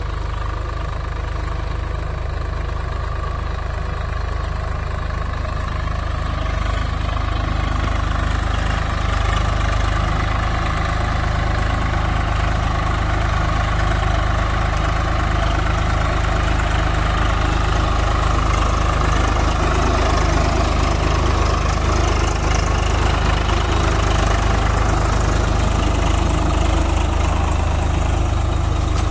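Swaraj 744 FE tractor's three-cylinder diesel engine running steadily under load while pulling a five-tine cultivator through the soil. It grows a little louder about a third of the way in.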